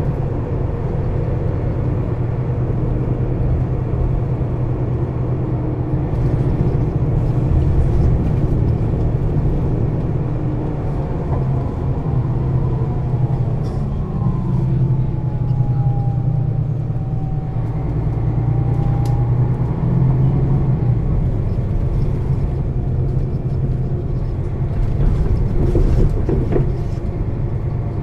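Setra S 415 NF city bus engine idling with a steady low drone, heard from inside the passenger cabin. Around the middle, a faint whine dips in pitch and then rises again.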